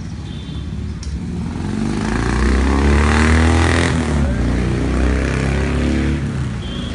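Royal Enfield motorcycle with a Carberry V-twin engine passing by. Its exhaust note grows louder, peaks about three seconds in, drops in pitch as it goes past and fades away.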